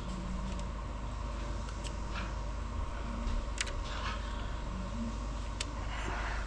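Eggshell being picked away by hand from a turkey poult stuck in its egg: three sharp, separate clicks over a steady low hum.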